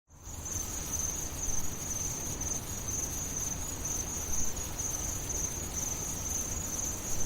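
Steady, high-pitched insect chirring, like crickets, over a low rumble.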